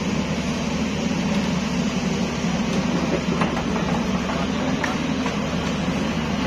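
Caterpillar tracked hydraulic excavator's diesel engine running steadily, with a few faint knocks.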